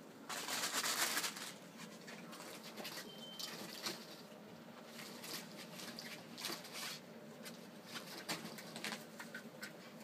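Pet ferrets scampering and scuffling over fleece beds and blankets: a run of small scratches, taps and rustles, with a louder rustle lasting about a second near the start.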